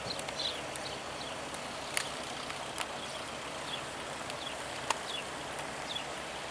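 Distant light-aircraft engine, the taxiing Piper L-21B's, running as a faint steady low drone under outdoor noise. A small bird chirps repeatedly over it, and two sharp clicks stand out, about two and five seconds in.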